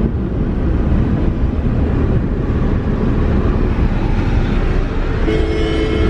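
Road noise inside a moving car's cabin: a steady low rumble of engine and tyres at highway speed. Near the end a steady pitched tone is held for about two seconds over the rumble.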